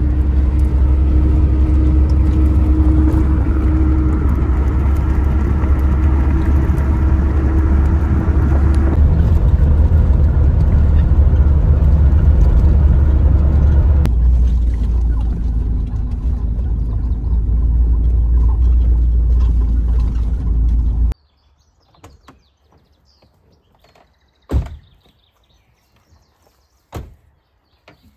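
A motor running with a heavy, steady low rumble and a steady hum, cutting off suddenly about 21 seconds in; after it, a few faint clicks and knocks.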